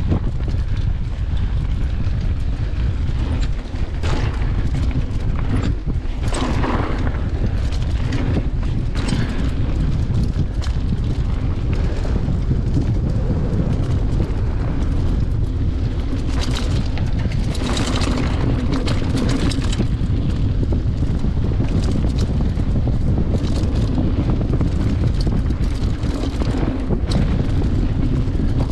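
Mountain bike riding down a dirt singletrack: wind buffets the on-bike camera's microphone in a steady low rumble, with tyres rolling on dirt. Short bursts of rattling and clatter from the bike come over the bumps, thickest about six seconds in and again between about 16 and 20 seconds.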